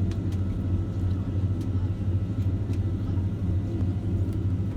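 Steady low rumble inside the cabin of a Boeing 767-300ER rolling on the ground just after landing, with a few faint clicks.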